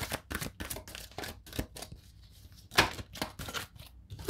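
A deck of oracle cards being shuffled by hand and cards pulled from it: a quick run of card snaps and clicks, a short pause, then a louder snap near the three-second mark followed by a few more.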